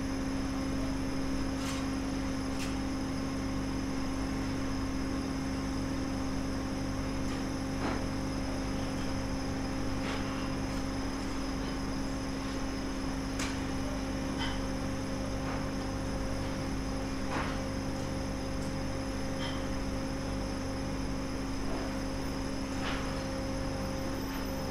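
Steady mechanical hum with a constant drone, and scattered sharp knocks every couple of seconds.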